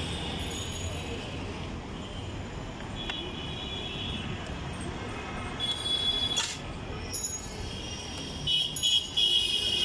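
Busy street traffic running steadily, with short high-pitched vehicle horn toots about six seconds in and again near the end.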